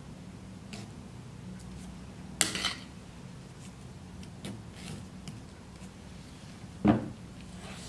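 Metal spatula scraping and clicking against buttercream and the cake board while buttercream is spread around the sides of a cake on a turntable, with two louder clatters, about two and a half seconds in and near the end, over a steady low hum.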